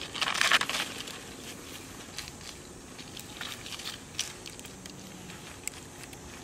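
A loud crackling rustle about half a second in, followed by scattered light clicks and snaps.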